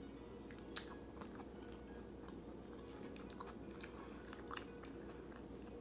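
Faint close-miked chewing of a vegan taco: soft wet mouth clicks and small crunches every half second or so, over a steady low hum.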